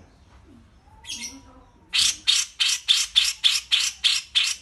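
A bird giving harsh, rasping call notes: one short note about a second in, then a fast string of about ten at three to four a second.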